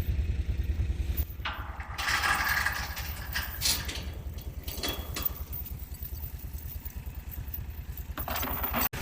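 ATV engine idling with a steady low throb, with a stretch of rattling and scraping noise a couple of seconds in.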